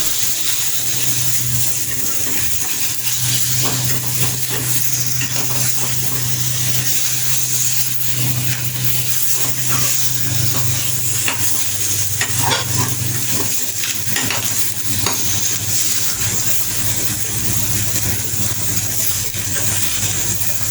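Pieces of rohu fish sizzling in hot oil in a pan on a high gas flame, with scattered light clicks and scrapes of a utensil stirring and turning them.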